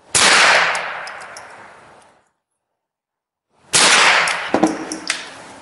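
Two shots from a Marlin 70 semi-automatic .22 LR rifle, about three and a half seconds apart. Each crack echoes and dies away over about two seconds under the covered range roof.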